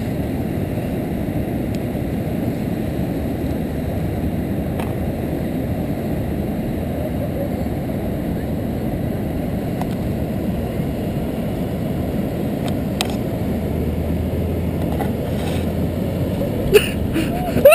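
Steady rushing noise of wind buffeting the microphone while moving fast over beach sand, with no clear engine tone.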